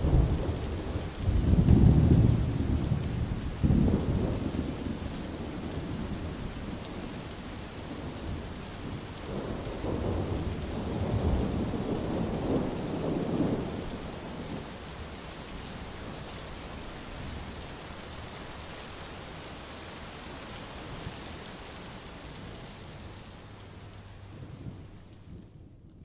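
Thunder rumbling in long low rolls over steady rain: one roll in the first few seconds and another about ten seconds in, then only the rain. Near the end the rain hiss briefly fades.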